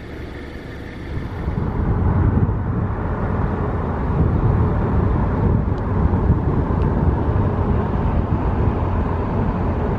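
Car driving at highway speed: a steady low rumble of road and wind noise, growing louder about a second and a half in.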